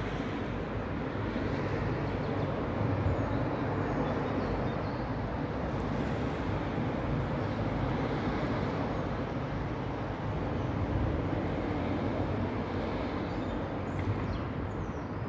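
Steady outdoor rumble and hiss, with no clear single source standing out.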